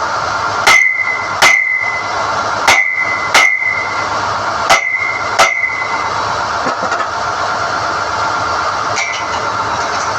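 SDH-1600 drilling rig running steadily while NQ drill rods are pulled from the hole, with six sharp, ringing metal clanks in three pairs in the first six seconds and a fainter one about nine seconds in.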